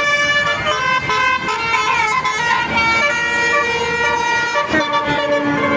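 Basuri telolet multi-tone musical horns playing a stepping, siren-like tune, the notes changing in turn, with a short downward glide about two seconds in.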